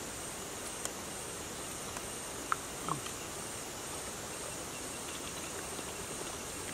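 Insects chirping outdoors: a steady, high, evenly pulsing buzz, with a few faint clicks.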